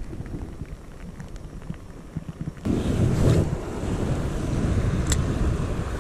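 Wind buffeting the microphone over a flowing river, quieter at first, then jumping sharply louder about two and a half seconds in. A single sharp click comes near the end.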